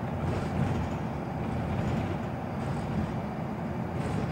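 Interior running noise of a Scania Wright Solar single-deck bus under way: a steady low rumble of the engine and road noise in the passenger cabin.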